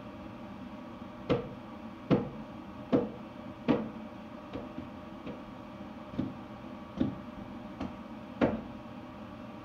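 A series of about ten sharp knocks or taps at an even pace, a little more than one a second, some louder than others, over a steady background hum.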